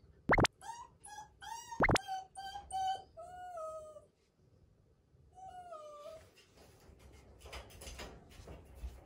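A black mame-shiba puppy whining in a string of short, high, wavering whimpers, impatient to get at treats. Two loud sharp clicks come about half a second and two seconds in.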